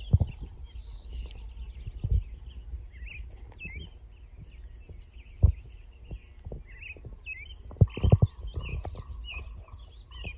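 Several small birds chirping and singing, short repeated calls and one higher drawn-out whistle a few seconds in, over a low outdoor rumble. A few sharp low thumps break in, a double one near the end.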